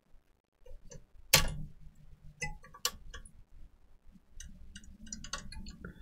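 Small hand tool clicking and tapping against the opened Dell D620 laptop's motherboard and chassis, in irregular small ticks with one sharper knock about a second in.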